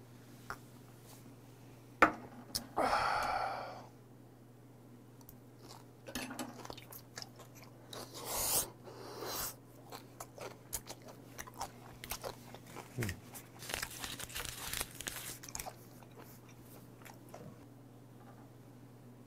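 Close-up wet chewing and lip-smacking of chewy raw beef, a run of small clicks and moist bursts from about six seconds in until near the end. Before it, about two seconds in, a single sharp knock, as a small brass soju cup is set down, then a short breathy exhale.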